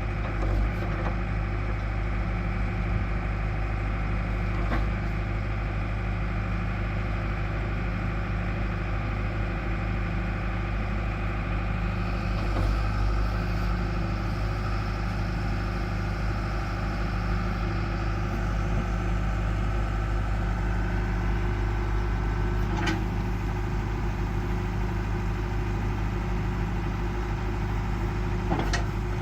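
John Deere 4.5 L four-cylinder turbo diesel in a loader backhoe, running steadily. A few separate knocks sound over it, and a higher thin whine comes in about twelve seconds in and fades again.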